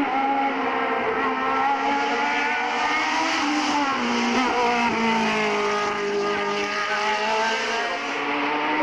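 Single-seater formula race car's engine at high revs as it drives past through a bend. Its pitch falls and climbs again several times through the gear changes.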